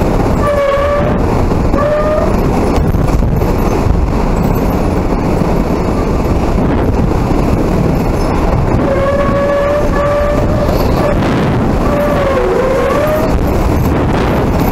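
Hurricane wind blowing hard and steadily, with a wavering howl over it near the start and again from about nine seconds in.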